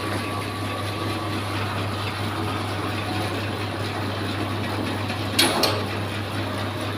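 Motor of a bamboo skewer shaving machine running with a steady hum, with one brief louder burst about five and a half seconds in.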